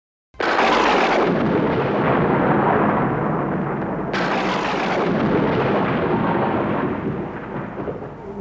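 Two claps of thunder, each breaking in suddenly and rumbling away over a few seconds, the second about four seconds after the first.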